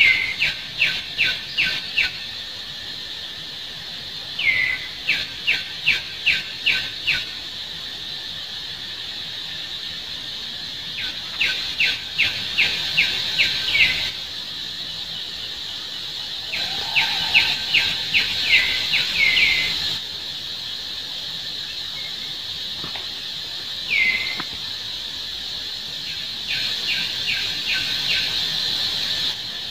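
A bird calling in repeated bouts of six to eight quick, sharp, high chirps, each bout about two seconds long with pauses of a few seconds between, over a steady high insect drone.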